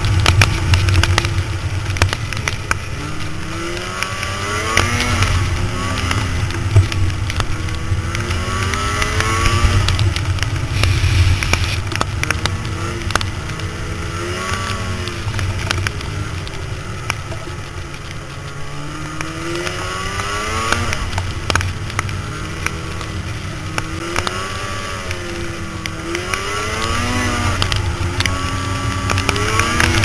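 Snowmobile engine running at speed, its pitch rising and falling several times as the throttle changes, with scattered ticks of snow and ice striking the machine.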